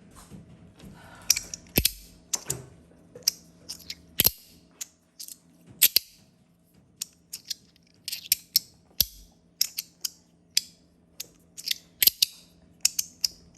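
Handheld metal fidget slider being worked back and forth: many sharp clicks as it snaps between positions, at an uneven pace, most followed by a short high-pitched scrape of the sliding parts.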